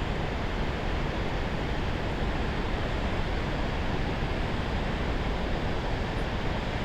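Steady rush of a mountain river and waterfall, an even roar of water without a break.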